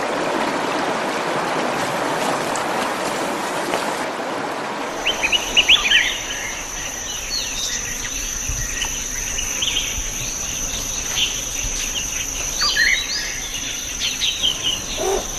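Rushing water for about the first five seconds, then a steady high-pitched insect drone, like crickets, with many short bird chirps and trills over it.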